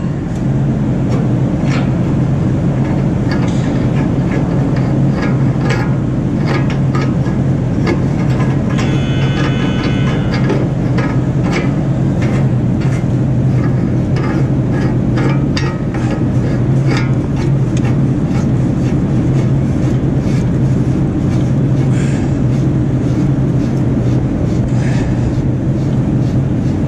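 Steady low mechanical drone throughout, with frequent light metallic clicks and knocks of a pipe wrench and hand tools on manifold fittings and plugs. A brief squeal comes about nine seconds in.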